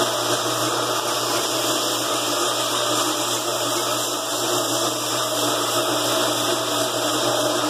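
Electric floor buffer running steadily: a constant motor hum under an even hiss.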